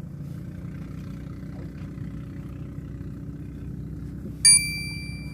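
A motor running steadily with a low, even drone, like a boat engine. About four and a half seconds in comes a single sharp click with a high ringing ping that fades within about half a second.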